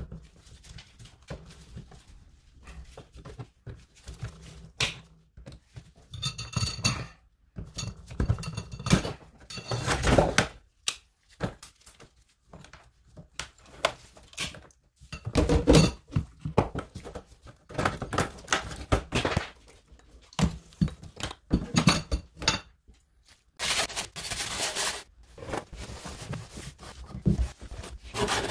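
Irregular clanks, knocks and scrapes of a kitchen faucet, its supply hoses and hand tools being handled against a stainless steel sink as the old faucet is pulled out of the sink deck.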